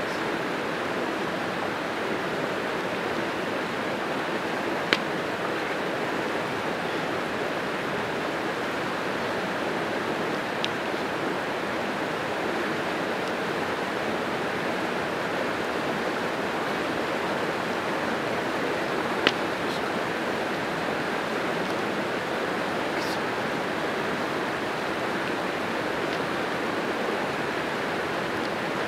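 Creek water rushing steadily. Two sharp clicks are heard, about five seconds in and again about two-thirds of the way through.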